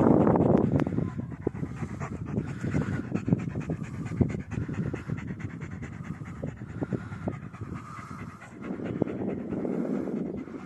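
A dog panting in quick, steady breaths, with a loud rush of noise in the first second.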